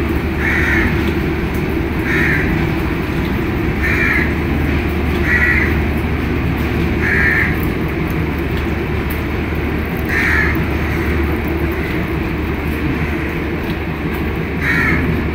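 A crow cawing seven times, single caws spaced a second or more apart. Under them runs a steady low hum of railway coach equipment.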